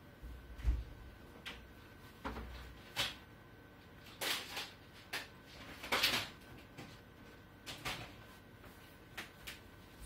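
A clear plastic compartment parts box being fetched and opened: a series of irregular knocks, clicks and plastic clatters, with a dull thump about a second in and a louder clatter around six seconds.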